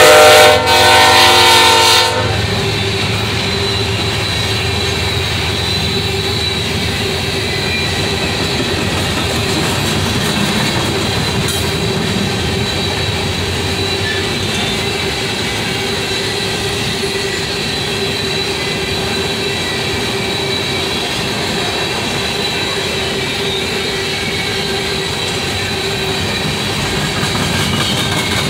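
BNSF freight train passing close by. The locomotive's air horn sounds loudly for the grade crossing and cuts off about two seconds in. Then the hopper cars roll past with a steady rumble of wheels on rail and a thin, steady, high wheel squeal.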